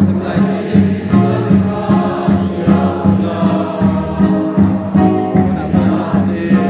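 Congregation singing a hymn together in chorus, with a large barrel drum beating a steady rhythm about twice a second.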